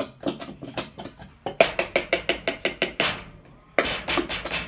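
Rapid, repeated tapping and clacking of a squeeze bottle of glitter glue against a bowl, at about five or six knocks a second with a short break about three seconds in, as the thick glue is worked out of the bottle.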